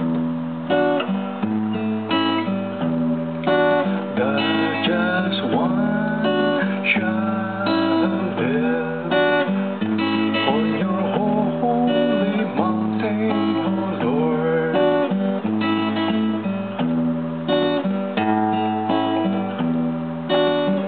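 Instrumental acoustic guitar music: plucked notes over a repeating bass line in a steady rhythm, with a few sliding notes.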